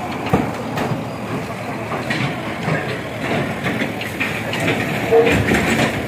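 Diesel engine of a backhoe loader running close by, with clanking, rattling and occasional knocks from the machine at work.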